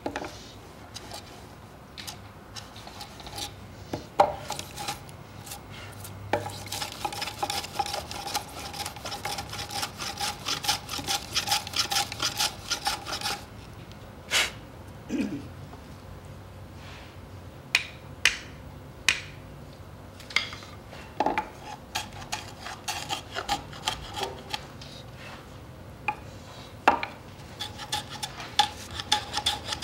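A Japanese shoulder plane (kiwa-ganna) shaving the inside corner of a timber joint in runs of quick, short strokes. Pauses and a few sharp single knocks break up the runs.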